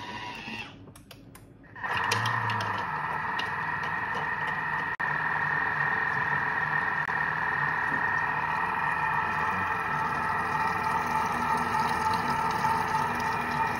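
Thermomix TM6 running at speed 2 and 120 °C, its blade turning through spice paste and oil as it sautés. The steady running sound starts suddenly about two seconds in, after a few light clicks.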